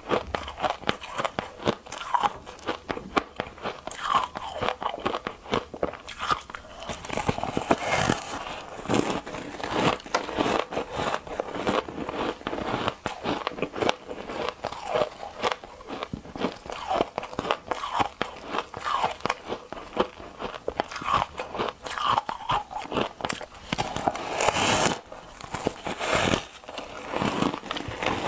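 Soft, foamy ice being bitten and chewed close to the microphone: a dense, continuous run of small crisp crunches and crackles.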